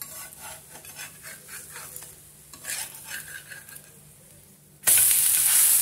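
Metal spatula scraping under a kambu adai on a hot iron dosa tawa, prying it loose from the edge in short scratchy strokes. About five seconds in, a loud, steady sizzle starts suddenly as the adai is turned over onto the hot griddle.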